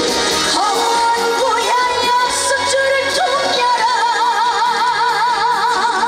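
A woman singing a trot song live over band accompaniment; about two-thirds of the way in she holds a long note with a wide vibrato.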